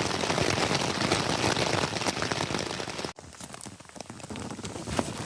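Heavy rain falling as a dense patter of drops. About three seconds in it cuts off abruptly, and a quieter stretch of scattered single drops follows.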